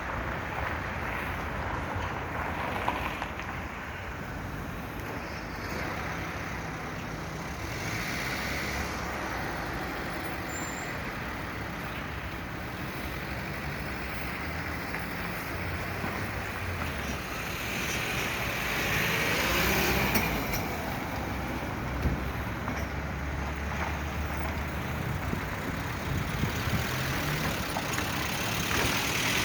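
Steady street traffic noise, with a vehicle passing louder about two-thirds of the way through, and a few sharp knocks of a wind-blown advertising banner against the window.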